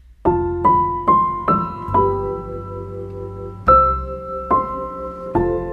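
Background piano music: a quick rising run of single notes, then sustained chords.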